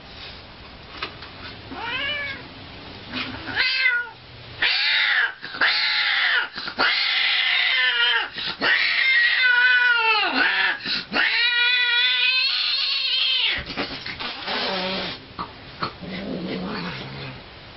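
An animal's loud, drawn-out calls, wavering up and down in pitch. A few short calls come first, then a long, almost unbroken run of them through the middle, then fainter ones near the end.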